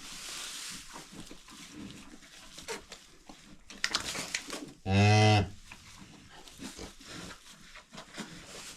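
A cow gives one short, low moo about five seconds in, with light rustling and shuffling around it.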